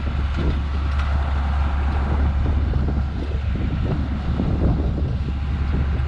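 John Deere 7610 tractor's six-cylinder diesel engine running with a steady low drone.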